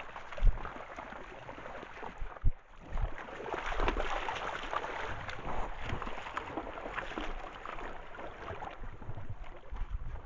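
Elk wading in shallow pond water close to the microphone: water sloshing and splashing around their legs, with a couple of low thumps in the first few seconds.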